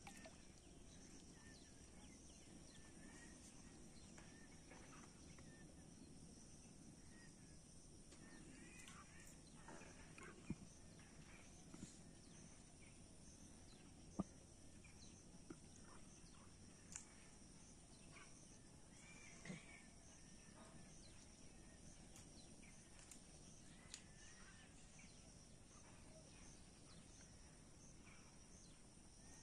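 Near silence: faint outdoor ambience with a steady high insect hum and scattered bird chirps, broken by a few short soft clicks.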